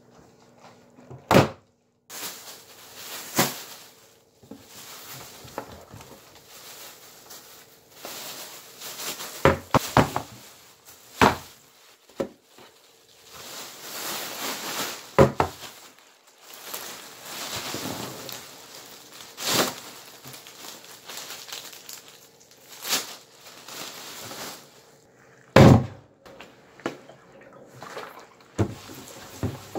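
Household items being handled at a wooden table: a plastic bag rustling between scattered sharp knocks and thunks as things are picked up and set down.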